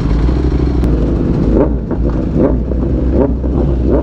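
Sport motorcycle engines idling in a group, with a few quick throttle blips, each rising and falling in pitch, from about a second and a half in.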